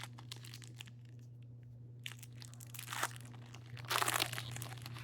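Foil wrapper of a Topps baseball card pack crinkling and being torn open, with the loudest tear about four seconds in. A steady low hum runs underneath.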